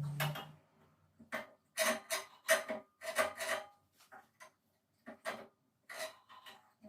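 A string of short, irregular scrapes and knocks: hands working on a Ryu 8-inch bandsaw during a blade change. A low hum stops just after the start.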